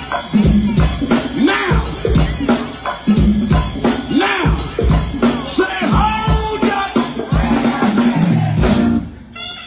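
Live go-go band playing, with a driving drum-kit beat and percussion under voices. The music drops back briefly near the end.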